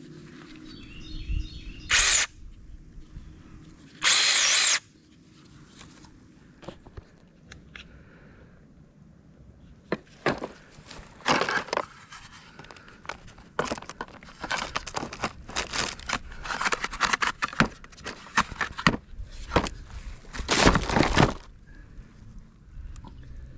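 Cordless SeeSii 8-inch electric chainsaw, its motor revving in two short bursts with a high whine, then cutting wood in a long run of short, uneven bursts of noise.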